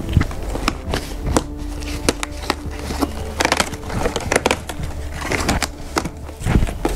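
A game box being opened by hand: irregular clicks, scrapes and rustles of cardboard and packaging, with music playing underneath.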